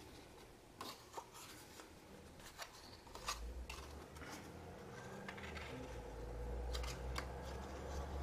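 Black cardstock being handled, bent and laid onto a card: soft paper rustling with scattered light clicks and taps. A low rumble builds from about three seconds in.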